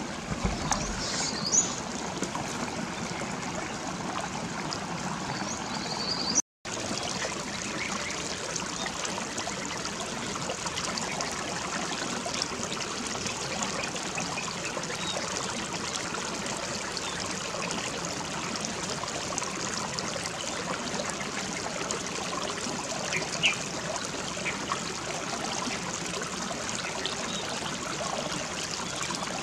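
Shallow rocky stream trickling and running steadily, with a few faint ticks; the sound cuts out completely for a moment about six seconds in.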